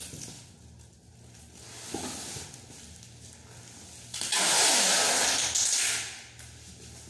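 Packing tape pulled off its roll across a cardboard box: a loud ripping hiss that starts about four seconds in and lasts about two seconds, with quieter rustling and handling of the box before it.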